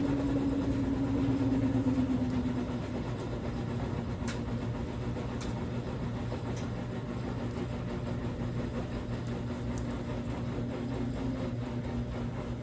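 Washing machine drum winding down at the end of a high-speed spin cycle. The motor whine drops a little in pitch and gets quieter about two and a half seconds in, then runs on as a steady lower hum, with a couple of faint clicks.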